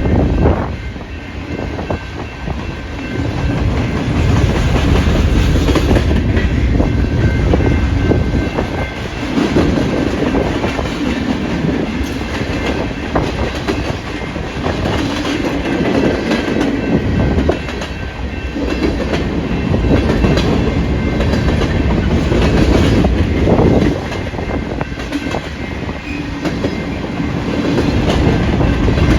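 Freight train of grain hopper cars rolling past, with steady rumble and wheels clicking over rail joints, and strong wind buffeting the microphone.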